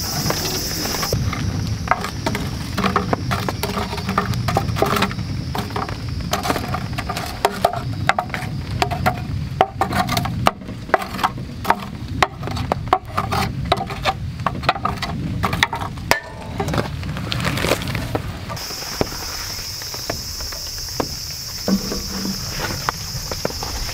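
Metal tongs shifting lumps of burning charcoal in a box grill: a run of clinks, clacks and crackles. A steady high insect chirring sounds in the first second and comes back about three-quarters of the way in, once the clicking stops.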